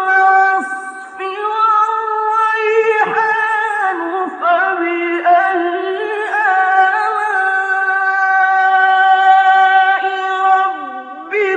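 A single voice chanting in long, ornamented held notes that waver in pitch, phrase after phrase with short breaks between them.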